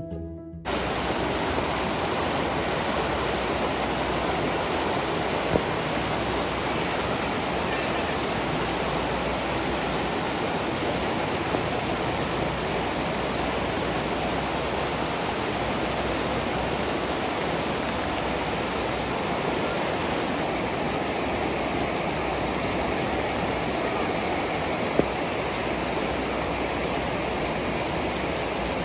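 Steady rushing of flowing river water, an even unbroken roar with no pitch, broken only by a few faint clicks.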